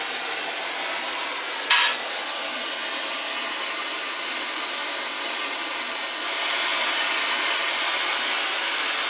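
Oxy-acetylene flame from a heating tip on a Harris 43-2 torch, burning with a steady, loud rushing hiss. One short sharp click sounds a little under two seconds in.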